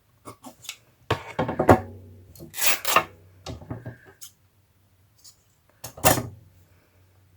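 Paper and card being handled on a craft table: several short bursts of rustling and soft knocks, the loudest about a second in, near three seconds and about six seconds in.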